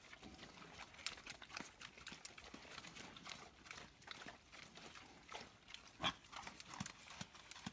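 Pigs eating grain feed from pans: faint chewing with many scattered small clicks, one a little louder about six seconds in.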